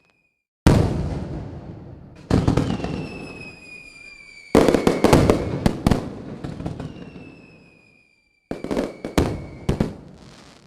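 Fireworks going off in four loud bursts: single booms with a fading rumble, then rapid clusters of sharp cracks. A high whistle twice slides slowly down in pitch.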